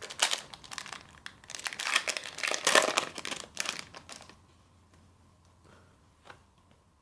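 Foil trading-card booster pack being torn open and crinkled, a dense crackling rustle that stops about four seconds in, followed by a few faint ticks of cards being handled.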